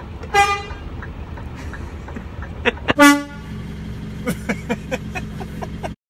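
Two short blasts from a handheld air horn: one about half a second in, then a louder, lower-pitched one about three seconds in. A run of sharp knocks follows near the end.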